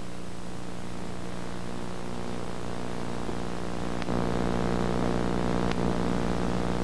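A steady, even drone with many evenly spaced overtones that gets a little louder about four seconds in, with two faint clicks: one at that point and one about a second and a half later.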